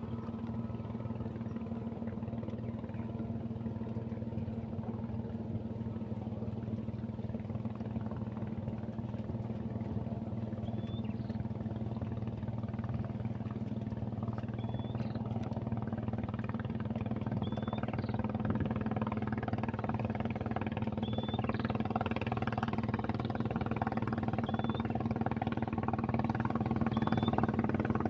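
A small engine running steadily, slowly getting louder. From about ten seconds in, a short high chirp repeats about every two seconds over it.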